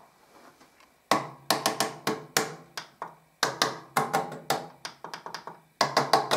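Pioneer VSX-D2011 AV receiver clicking rapidly, about five clicks a second, in three bursts of about two seconds, each with a low mains buzz under it, as its power button is held. The receiver fails to power up, which the owner suspects is a power supply or power control board fault.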